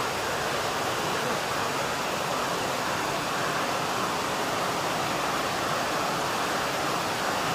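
Heavy rain, a steady hiss at an even level.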